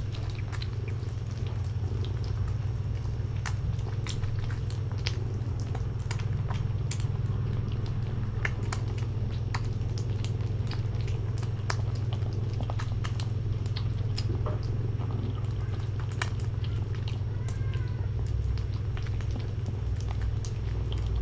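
Kittens eating wet cat food from plates: many small wet clicks and smacks of chewing and lapping, scattered irregularly, over a steady low hum.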